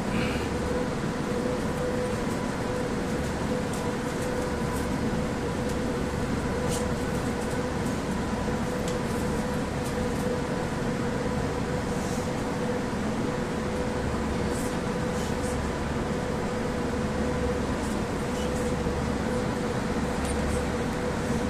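Steady interior noise of a Moskva-2024 metro car, a low rumble with a constant mid-pitched hum that holds the same pitch throughout.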